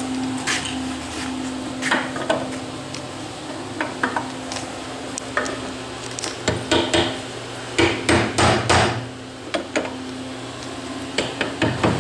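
Hammer blows on a cast iron clutch bell housing: scattered knocks at first, then quick groups of strikes in the second half, over a steady low hum.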